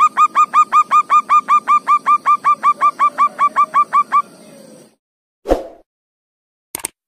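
Zebra dove (perkutut) cooing: a rapid run of short, clipped notes, about five a second, that stops about four seconds in. A brief noisy sound and a short click follow near the end.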